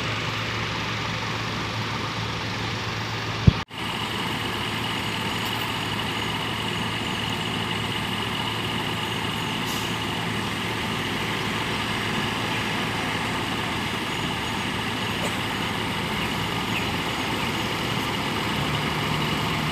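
Large bus engine idling steadily, a low even hum. A single sharp click comes about three and a half seconds in, followed by a split-second break in the sound.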